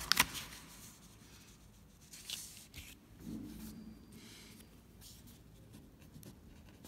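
Paper handling on a notebook: two sharp crackles just after the start as the freshly turned page is flattened, then faint rustling and light pen scratches on the paper.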